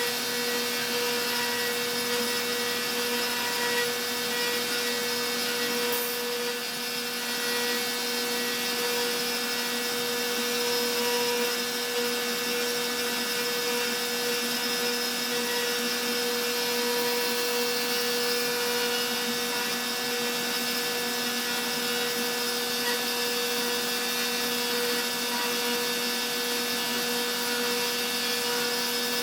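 Stepcraft M1000 CNC router's spindle running with a steady whine while a V-bit carves wood, the audio sped up to twice actual speed. A brief click about six seconds in.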